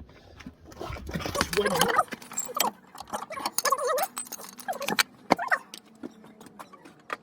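Hand tools clicking and clinking on metal, with a wavering, whine-like pitched sound rising over it a few times in the middle.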